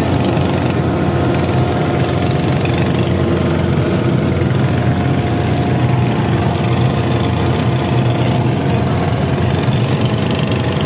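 Fishing boat's engine running steadily under way, a loud, even drone.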